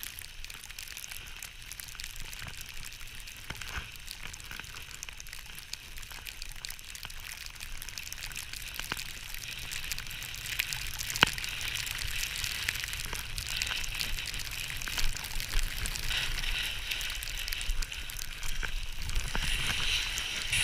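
Skis sliding and carving over snow: a steady scraping hiss that grows louder in the second half, with a few sharp clicks and a low rumble of wind on the camera microphone.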